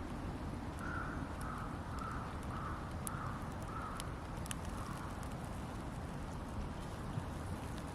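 A crow cawing about seven times in a row, evenly spaced, over a steady low rumble, with scattered sharp crackles from a wood campfire.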